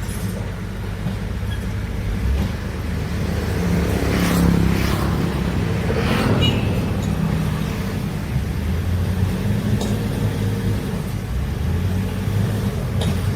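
Heavy diesel excavator engine running steadily with a low rumble, swelling louder for a few seconds around the middle, with a few brief knocks.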